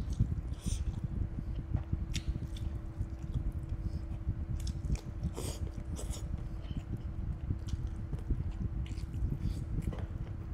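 Close-miked chewing and biting of a curry-coated chicken drumstick and rice, with wet mouth clicks and smacks scattered throughout.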